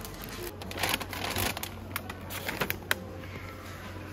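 Clear plastic bag around a croissant crinkling as it is handled with tongs and set on a tray, with a few sharp clicks.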